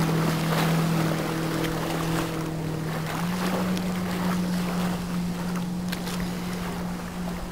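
Yamaha 110 hp four-stroke jet engine of a small RIB running at speed, a steady drone that steps up slightly in pitch about three seconds in and slowly fades as the boat draws away.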